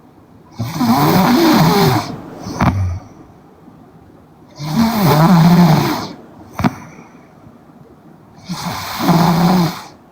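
A young woman snoring in her sleep: three loud, rasping snores about four seconds apart, each lasting about a second and a half, with a short click after the first two.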